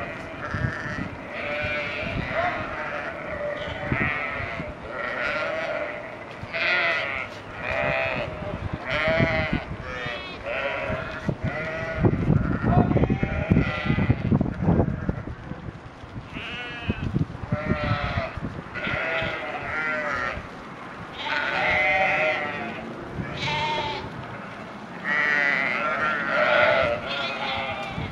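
A large flock of sheep bleating constantly, many wavering calls overlapping one another. A louder stretch of low knocking and rumbling noise comes about halfway through.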